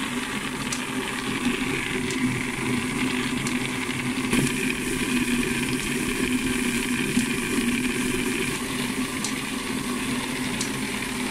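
Homemade bucket-type firework star roller running: a steady machine hum as the bucket turns, with faint occasional clicks from the stars tumbling inside.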